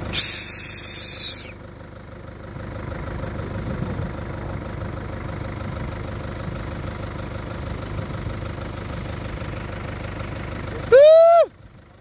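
Vehicle engine idling with a steady low rumble. A loud burst of hiss comes in the first second and a half, and about eleven seconds in a short, loud tone with overtones rises and falls before the sound cuts off.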